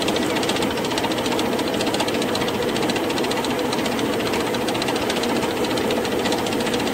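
Ground cattle feed streaming from an overhead spout into a plastic bucket, a steady, fast rattling hiss.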